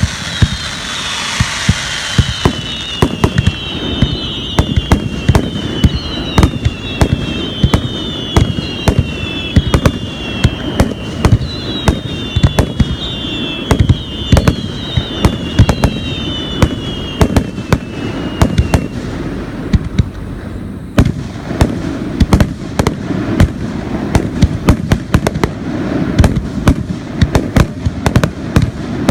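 Aerial fireworks going off in a dense barrage of bangs and crackles, several a second. Over the first two-thirds a run of high whistles repeats, each falling in pitch.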